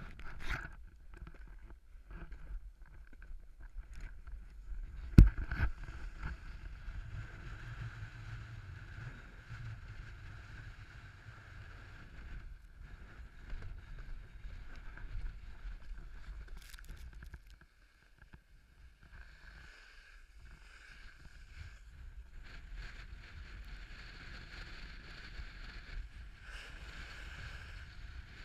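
Snowboard sliding and scraping over packed snow, heard as a steady low rumble and hiss on a pole-mounted GoPro, with a sharp knock about five seconds in.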